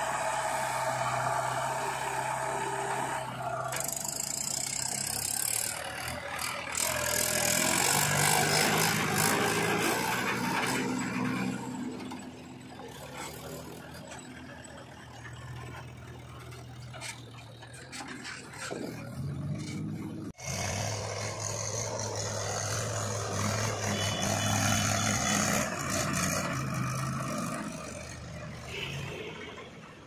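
Mahindra tractor diesel engines running and working under load as a trolley of earth is hauled, with rattling and scraping from the loaded trolley and the JCB backhoe. The sound breaks off sharply about twenty seconds in and then picks up again.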